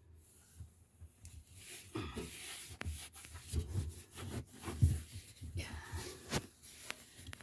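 Cloth rag wiping and scrubbing the surfaces of a washing machine: irregular rubbing strokes with scattered light knocks and clicks as things are handled.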